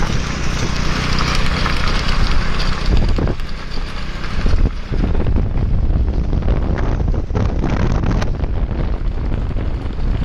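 Steady engine drone of a moving vehicle, with wind rushing over the microphone, heaviest in the first few seconds. A few sharp knocks stand out here and there.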